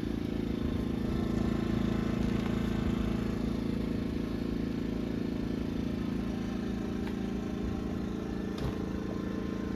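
An engine or motor runs steadily, holding an even pitch, with a few light ticks near the end.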